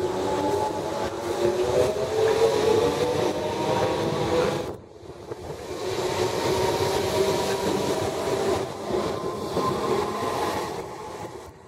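British Rail Class 313 electric multiple unit accelerating away from a station, its traction motors whining and rising in pitch over rail noise. The sound dips briefly about five seconds in, then carries on and fades a little near the end as the train draws away.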